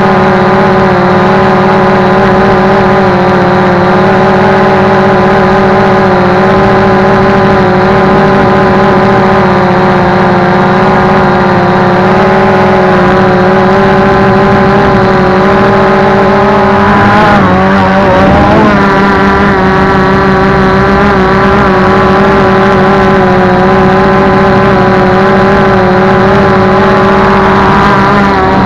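Multirotor drone's electric motors and propellers whining steadily, loud on the onboard action camera's microphone. A little over halfway through the pitch dips and wavers briefly with a throttle change, then steadies again.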